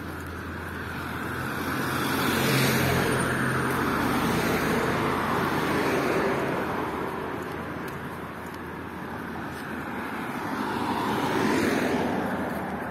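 Cars passing along a street as tyre and engine noise that swells and fades, loudest from about two to six seconds in and again briefly near the end.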